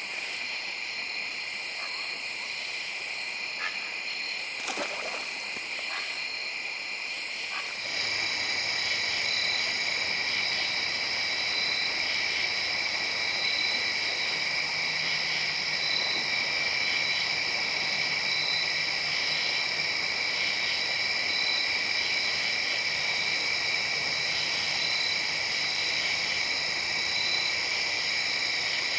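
Night chorus of crickets and other insects: a steady high-pitched trilling at several pitches at once, with an even higher trill that switches on and off in stretches of a second or two through the first eight seconds.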